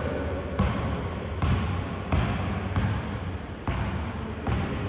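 Basketball bouncing on an indoor court: about five sharp thuds at an uneven pace, most under a second apart, over a steady low rumble.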